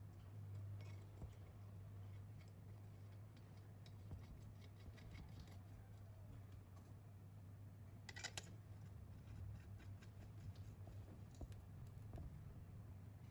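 Faint, irregular clicking and scratching of hand work on small engine parts, over a steady low hum. A short cluster of sharper clicks comes about eight seconds in.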